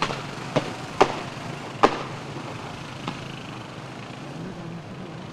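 Five sharp, shot-like bangs within about three seconds, the loudest nearly two seconds in, over the steady running of motorcycle engines.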